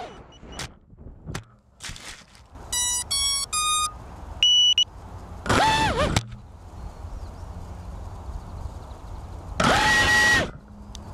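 Brushless motors of an FPV quadcopter lying in grass give three short rising beeps, then a single higher beep. Two brief bursts follow as the motors spin up and down, the turtle-mode attempt to flip the upturned quad, over a steady hiss.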